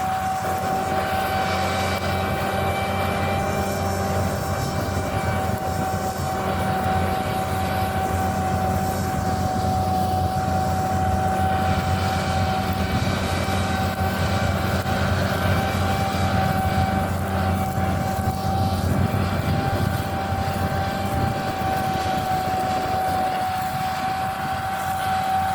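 Combine harvester running steadily under load, heard from inside the cab: a constant low engine hum with a high, steady whine over it.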